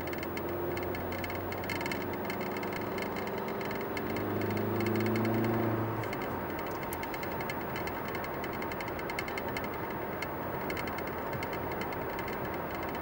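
Car cabin noise while driving: an engine hum over steady tyre and road noise. The engine note rises a little and then drops away about six seconds in, leaving the road noise with a fast ticking rattle.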